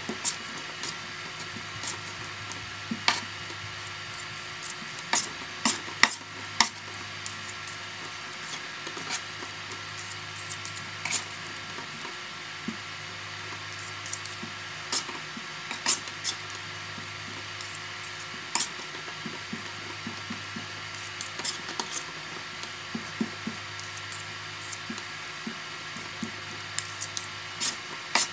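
Two metal putty knives mixing a mound of wet ceramic clay on a tabletop: irregular sharp clicks and scrapes as the blades cut and fold the clay and are scraped against each other, over a steady low hum.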